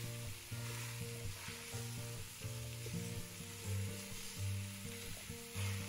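Ground Italian sausage sizzling as it browns in a hot pot while it is stirred and broken up with a plastic masher. A steady frying hiss runs under background music of slow, held low notes.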